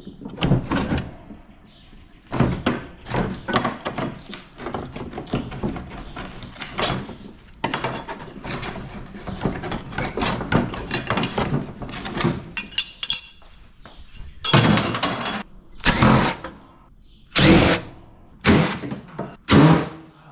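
Metal clattering and knocking as an old air-conditioner unit's sheet-metal casing and parts are handled and pried apart, with a run of quick rattling knocks followed by about five separate louder bangs near the end.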